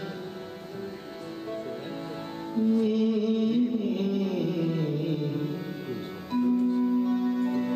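A male voice sings a ghazal to harmonium accompaniment: a phrase that winds and falls, then a long held note near the end.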